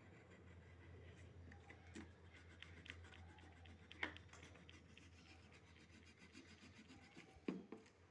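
Faint pencil strokes scratching on paper, in many short ticks, with two louder sharp taps, one about halfway through and one near the end.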